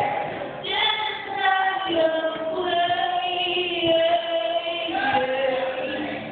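A woman singing solo into a microphone, holding long notes.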